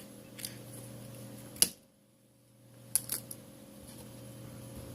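Light clicks and taps of small tools and iPhone parts being handled on a work surface, over a steady low electrical hum. One sharp click is the loudest, about a second and a half in; the background then drops out for under a second, and a few more clicks follow.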